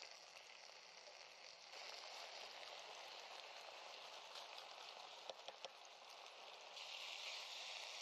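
Faint, steady sizzling of chicken, onions and peppers frying in a pan, with three quick light clicks about five seconds in.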